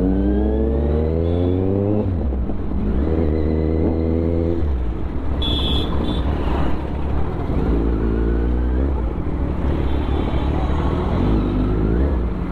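Kawasaki Z900 inline-four engine revving up and easing off several times while riding slowly in traffic, its pitch climbing and then dropping back. A short horn beep sounds about five and a half seconds in.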